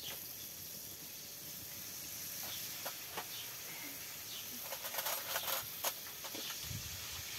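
Faint background with a steady hiss, scattered short high chirps, and a quick run of sharp clicks about five to six seconds in.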